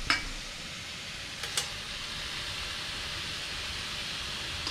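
Cobia steaks sizzling on a hot ridged grill pan: a steady hiss, with two sharp clicks in the first two seconds.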